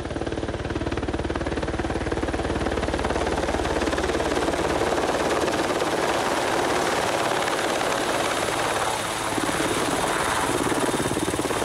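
Large helicopter flying in low and coming toward a hover, its rotor blades chopping rapidly and steadily, growing a little louder as it nears.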